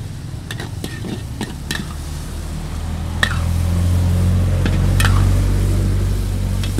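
Pork pieces tipped from an aluminium pot into a hot wok, sizzling and being stirred, with several sharp clinks of the metal spatula and pot against the wok. A low rumble swells in the middle and eases off near the end.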